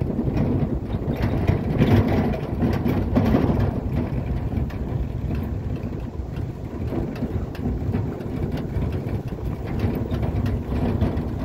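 A vehicle driving over a rough dirt road, heard from inside: engine running and tyres rumbling in a steady low noise.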